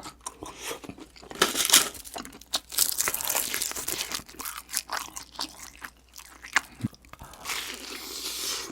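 Close-miked eating: bites and chewing of crispy breaded pork cutlet, with irregular crunching and crackling of the fried coating.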